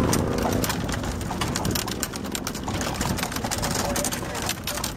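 Horse's hooves clip-clopping on the road as it pulls a hundred-year-old buggy, with the buggy's wheels and frame rattling over the surface in a run of irregular knocks.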